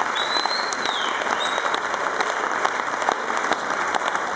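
Audience applauding steadily at the end of a dance performance, with someone whistling twice in the first two seconds.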